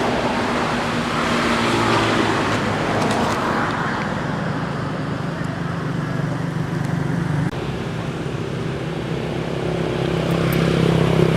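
Steady road-traffic noise with a low motor hum, changing abruptly about seven and a half seconds in.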